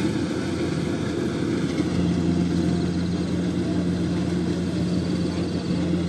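Kubota DC-70 combine harvester's diesel engine and threshing machinery running steadily while harvesting rice, a continuous drone with a low hum that grows a little stronger about two seconds in.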